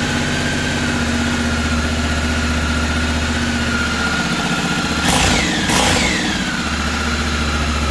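Honda CRF1100L Africa Twin's 1084 cc parallel-twin engine idling steadily just after being started, with two brief blips of the throttle about five seconds in.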